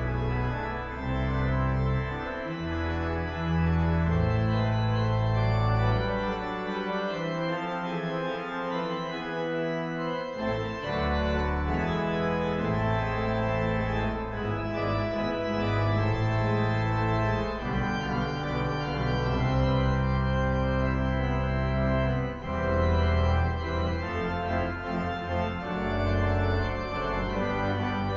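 Organ playing slow, held chords over deep bass notes, the bass dropping out for a few seconds near the middle.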